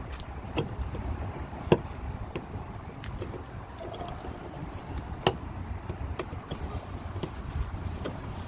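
Scattered small clicks and knocks of a car's exterior door handle and latch being worked by hand, with two sharper clicks, one a little under two seconds in and one about five seconds in, over a steady low rumble.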